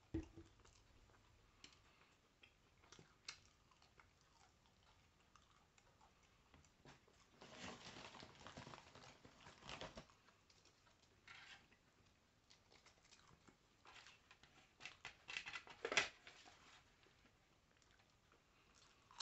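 Faint chewing and crunching of chips, in scattered short bursts with quiet stretches between.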